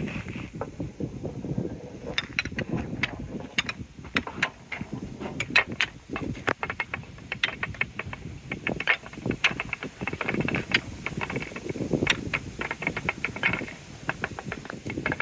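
Marble run balls rolling along the grooves of a park bench: a continuous low rolling rumble, with many sharp clicks and clacks as the balls knock against the course and each other.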